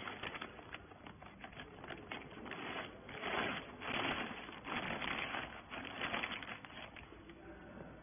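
Clear plastic bag crinkling and rustling as it is pulled over a pressed bale of rags, with irregular crackles, loudest a little past the middle.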